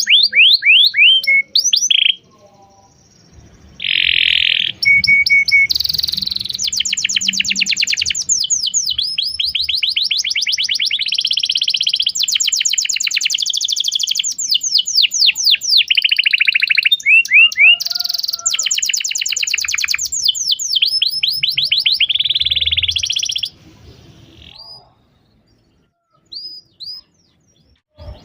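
Domestic canary singing a long song of rapid repeated trills and chirps, some notes sweeping down quickly, others in buzzy rolls, with a pause about two seconds in and the song stopping at about twenty-three seconds, leaving a few short chirps.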